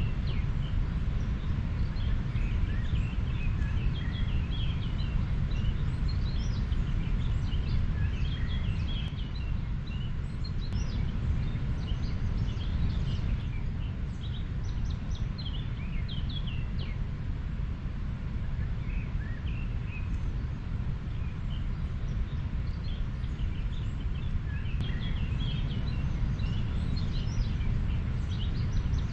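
Steady low rush of a river flowing, with small birds chirping high above it throughout, most busily in the first half and again near the end.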